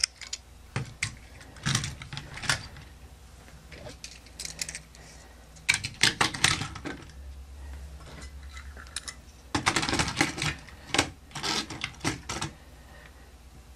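Small toy cars clicking and rattling against a plastic toy car-transporter trailer as they are pushed up its ramp and into its decks, in irregular clusters of clicks with short pauses between.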